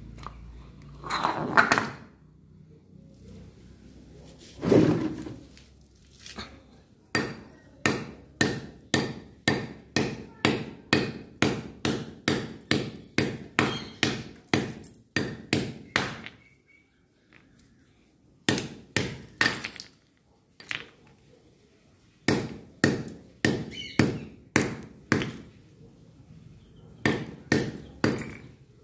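Small hammer striking a disc of ice on a hard stone tile floor, cracking it into chunks. Two heavier knocks in the first few seconds, then runs of sharp blows at about two a second, broken by short pauses.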